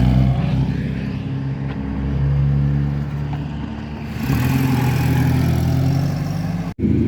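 Car engines running at fairly steady revs. The sound eases off a little, then a louder engine comes in about four seconds in. Near the end the sound cuts out abruptly for an instant and a different engine sound follows.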